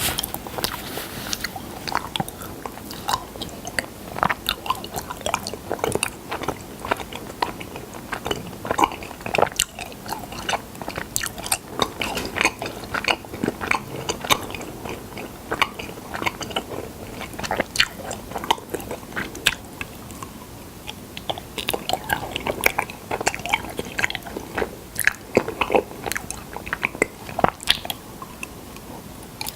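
A person biting and chewing honey right at the microphone: a dense, irregular run of short mouth clicks.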